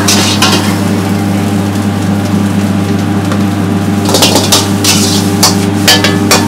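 A metal ladle scraping and clanking against a carbon-steel wok as rice is stir-fried, with a steady low hum underneath. The clanks come in quick bunches from about four seconds in.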